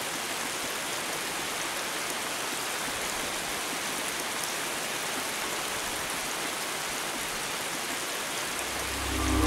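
Steady heavy rain falling. About half a second before the end, a low tone swells in underneath.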